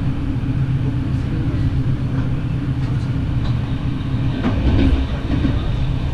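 SBB Interregio passenger train running at speed, heard from inside the carriage: a steady low rumble of wheels on the rails with faint clicks, swelling briefly louder about four and a half seconds in.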